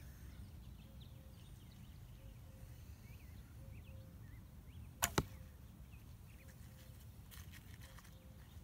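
A 60 lb wooden longbow with horn nocks being shot: the string is released about five seconds in with a sharp double snap as it slaps forward and the arrow leaves.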